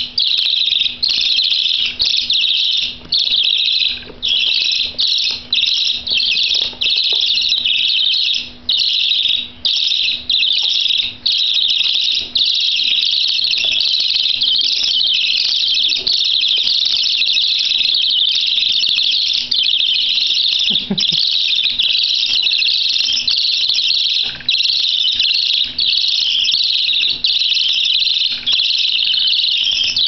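Budgerigar chicks begging for food: a loud, continuous high-pitched chorus of calls, broken only by brief pauses.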